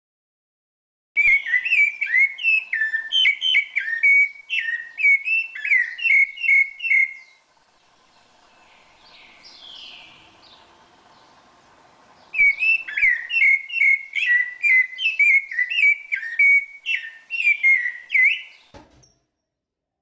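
Rufous-bellied thrush (sabiá-laranjeira) singing: two runs of quick, varied whistled phrases of about six seconds each, with a much quieter gap of about five seconds between them.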